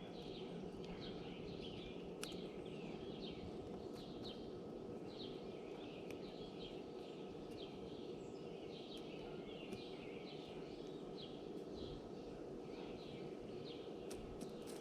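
Small songbirds at a tray feeder chirping over and over, short quick chirps about two to three a second, over a steady low background hum, with a few sharp clicks.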